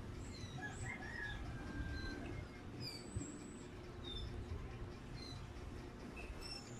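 Scattered short, high chirps of small birds in the background, over a low steady rumble, with one sharp click about three seconds in.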